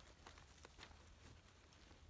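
Near silence, with faint scattered clicks and crackles over a low rumble.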